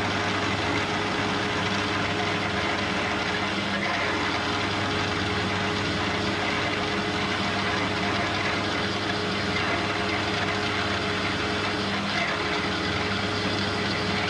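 AL960B metal lathe running steadily while machining a 4140 steel part, a constant motor and gear hum under a spread of cutting noise. It stops abruptly at the end.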